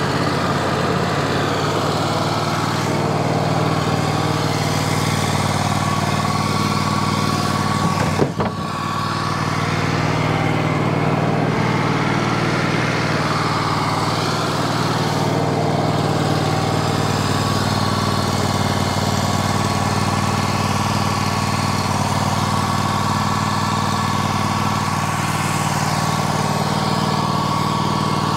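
Wood-Mizer band sawmill's engine running steadily. A single sharp knock about eight seconds in.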